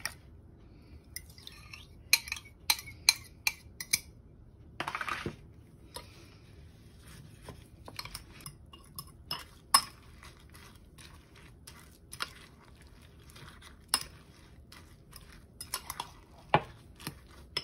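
A spoon stirring a wet mixture of egg and oats in a glass mixing bowl: irregular clinks and taps of the spoon against the glass, with a longer scrape about five seconds in.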